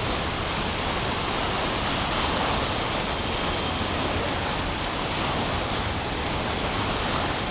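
Steady rushing wind on an outdoor microphone, buffeting unevenly at the low end, with no distinct events.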